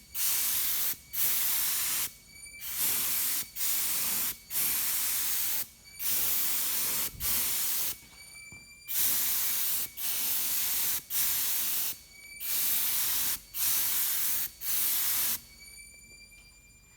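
Epoxy primer being sprayed in short hissing spurts, about fifteen of them with brief pauses between, some carrying a faint whistle from the nozzle. The spraying stops near the end.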